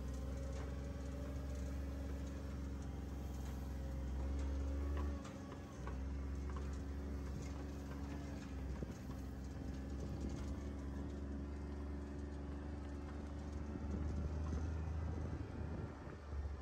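Steady low hum of a running motor, with a brief drop in level about five seconds in and a few light clicks.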